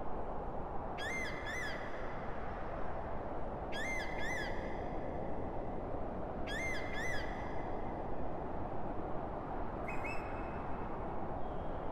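A bird calling three times, each call a quick pair of short arching high notes with a brief held tail, and a fainter call near the end, over a steady rushing background noise.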